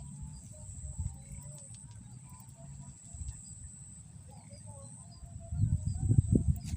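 Small birds chirping repeatedly over a steady high-pitched whine, with a low rumble throughout. Near the end a louder burst of low thumps and rumbling is the loudest sound.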